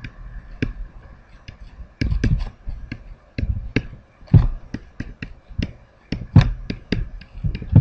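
Stylus tapping and clicking on a tablet screen during handwriting: irregular sharp taps, a few each second.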